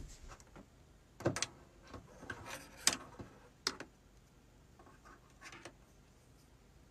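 Scattered small clicks and rustles, about half a dozen, the sharpest near three seconds in, over a faint room background.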